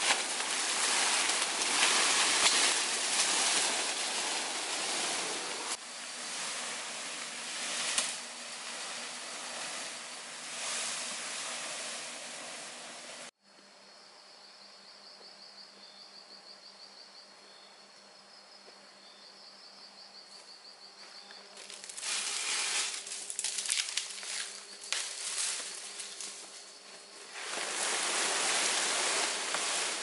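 Large fan-palm leaves rustling and brushing loudly as a bundle of them is carried close by. About 13 seconds in, the sound drops suddenly to a quiet stretch with a steady high, pulsing insect trill; the leaf rustling returns in bursts later and is loud again near the end.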